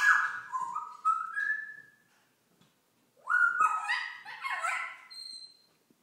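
African grey parrot calling in two bouts of loud, pitched calls. The first call rises in pitch in steps and ends about two seconds in; after a pause, a second, more jumbled bout follows, with a short high whistle near its end.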